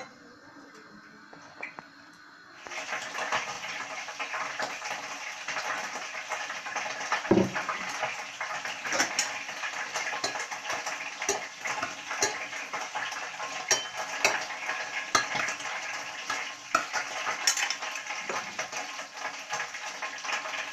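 Frying pan sizzling steadily with fat spitting, starting about three seconds in, with small clinks of a metal spatula and fork on a plate and one low thump about seven seconds in.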